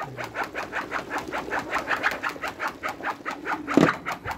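Aluminium cooking-pot lid set down on the pot with a single clank near the end, over a steady, even pulsing of about six strokes a second.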